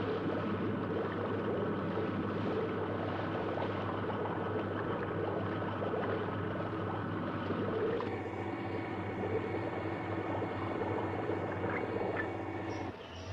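Water churning and bubbling as the Stingray submarine is lowered into its pen, over a steady mechanical hum; about eight seconds in, the hum becomes steadier and more prominent.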